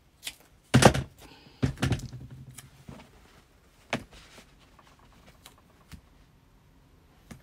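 Handling noises on a work table: a few knocks and rustles in the first four seconds, the loudest about a second in, then quieter handling.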